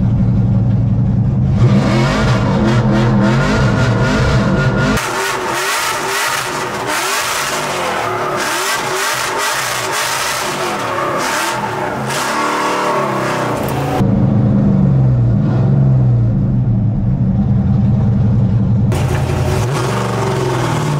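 LS V8-swapped Nissan 350Z drift car's engine revving hard, heard from inside the cabin on track. The revs climb and fall repeatedly, and the sound jumps abruptly a few times.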